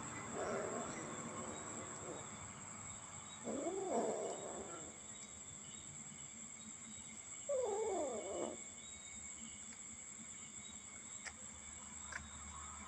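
Cat meowing: three drawn-out calls a few seconds apart, each bending up and down in pitch, over a steady high-pitched background whine.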